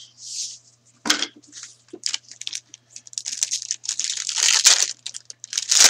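Foil wrapper of an SPX hockey card pack being torn open and crinkled by hand. Short crackles come at first, then a dense, loud stretch of crinkling in the last couple of seconds.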